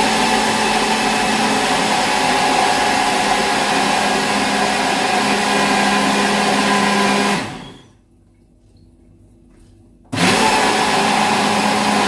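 Personal countertop blender running to blend a green vegetable juice smooth: a steady motor whir that runs for about seven seconds, stops, and starts again about two and a half seconds later.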